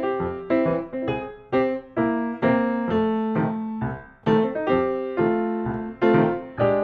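Background piano music: single notes and chords struck about twice a second, each ringing and fading before the next.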